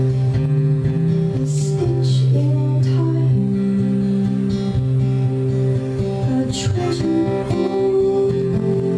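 Live band playing a slow song: acoustic guitar strumming over sustained keyboard and bass guitar notes.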